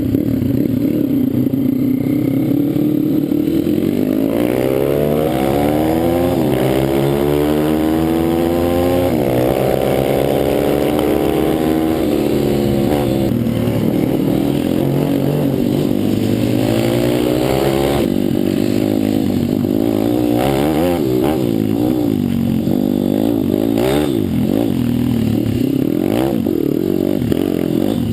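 Pit bike engine running, holding a fairly steady pitch for the first few seconds, then revving up and falling back again and again as the bike is ridden. A few sharp knocks or clatters come in the last third.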